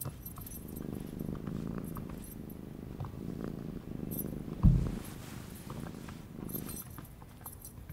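Domestic tabby cat purring steadily, with a few light clicks and one loud low thump about four and a half seconds in.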